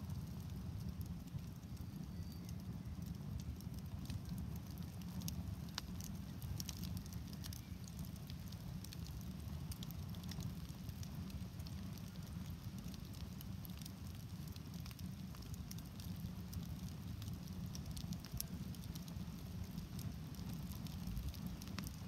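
Campfire burning shoes on a shoe rack: many scattered sharp crackles and pops over a steady low rumble.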